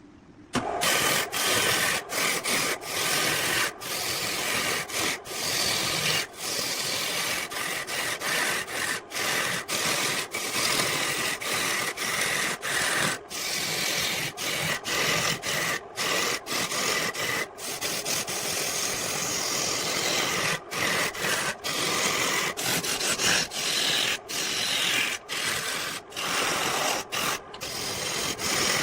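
A tool cutting or scraping wood: a steady rasping noise that starts about half a second in, broken by many brief gaps.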